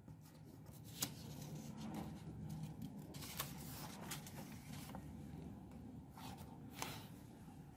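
Faint rustling and a few light taps of a sheet of paper being handled and laid down over an open textbook.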